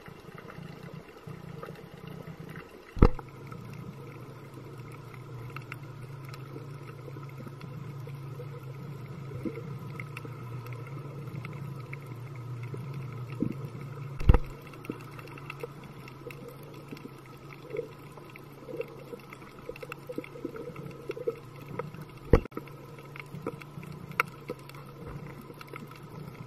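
Underwater ambience picked up by a camera in a dive housing: a steady low hum, broken by three sharp knocks spread through it, with small bubbling sounds in the second half.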